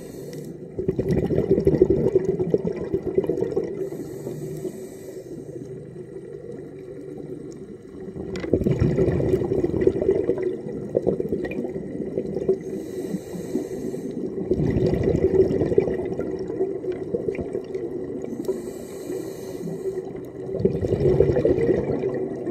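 Diver breathing underwater through a regulator: a short hiss on each inhale, then a longer rush of exhaled bubbles, about four breaths in all.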